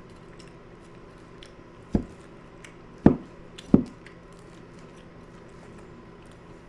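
A metal fork knocking and scraping in a bowl while eating: three dull knocks, the last two about half a second apart, with small clicks between.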